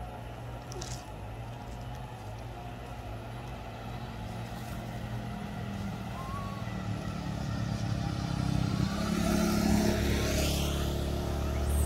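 A motor vehicle's engine running steadily and drawing nearer along the road, growing louder over the last few seconds.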